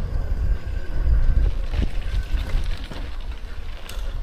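Riding noise from a recumbent bicycle on the road: wind rumbling on the microphone over road noise, swelling about a second in, with a single click near the end.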